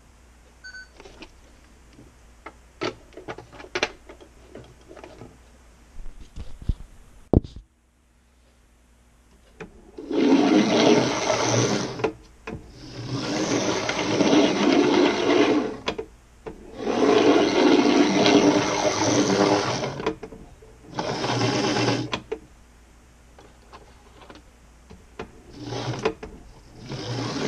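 OO gauge model trains rumbling along the track as they pass close by: wheels on rail and motor noise in several swells of two to three seconds each from about ten seconds in. Before that, a few faint clicks.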